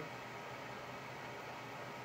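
Steady hiss of AM static from a Uniden Bearcat 980 CB radio's speaker in a gap between transmissions.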